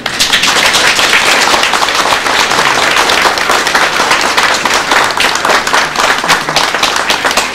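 Crowd of people applauding, a dense steady clapping that starts at once and thins a little near the end.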